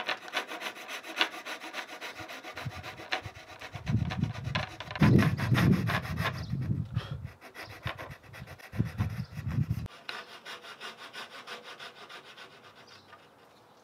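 Coping saw cutting the profile of a primed chair rail molding for a coped inside corner: rapid, regular back-and-forth saw strokes through the wood, fading out near the end.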